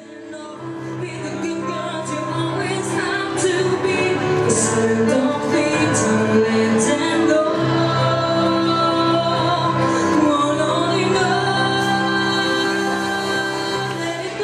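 A woman singing into a microphone over musical accompaniment, with long held notes. The music starts from silence and builds over the first few seconds.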